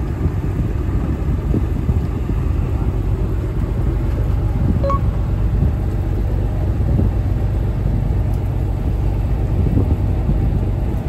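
Steady low rumble aboard a fishing boat on the water, with a short faint beep about five seconds in.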